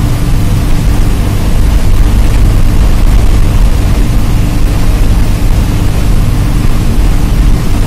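Diesel engine of a Palle Velugu bus running steadily at cruising speed, heard from inside the cabin. A constant low hum sits under steady road and wind noise.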